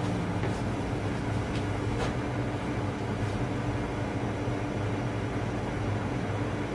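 Steady low mechanical hum over a noisy background, with a few faint clicks in the first two seconds, the clearest about two seconds in.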